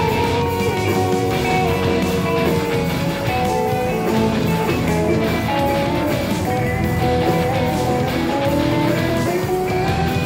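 Live band music with several guitars, electric and acoustic, over an electric bass, playing steadily through an amplified PA.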